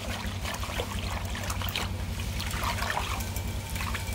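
A wire whisk stirring thin liquid cake batter round a glass bowl, sloshing and swishing irregularly while the sugar is stirred until it dissolves. A steady low hum runs underneath.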